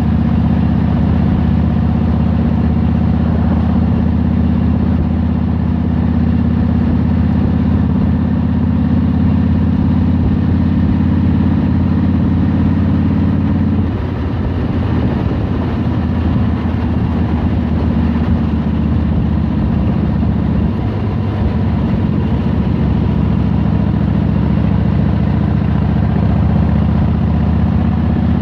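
Motorcycle engine running steadily while riding at cruising speed. The engine note drops back for several seconds about halfway through, then steadies and picks up again.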